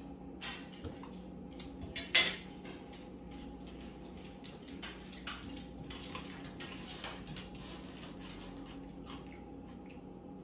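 Spoon and fork clinking and scraping on a ceramic plate as food is scooped up, with one sharp clink about two seconds in, then scattered lighter clicks.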